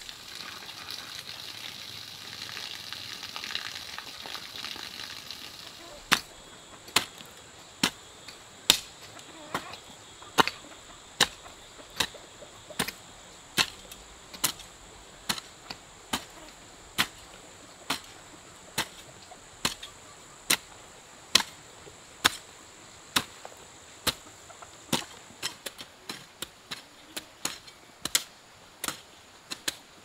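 A hoe chopping into garden soil: sharp, evenly paced strikes a little more than once a second, coming quicker and lighter near the end. For the first six seconds there is only a steady high hiss.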